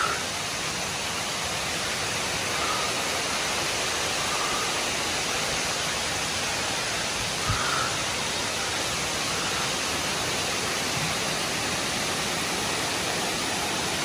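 Steady rush of a waterfall, with one brief knock about halfway through.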